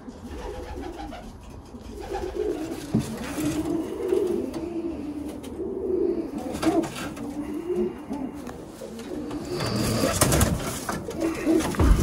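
Pigeons cooing in a small wooden loft, the low wavering coos repeated through the middle. Near the end there is a louder clatter and rustle as the birds are caught by hand at the wire-fronted perches.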